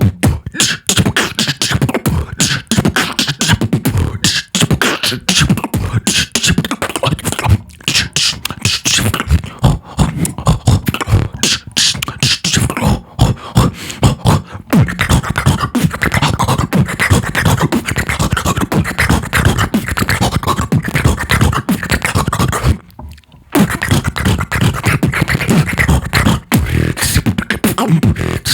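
Solo beatboxing: a fast, dense run of vocal percussion with heavy bass sounds, broken by one short pause about three-quarters of the way through.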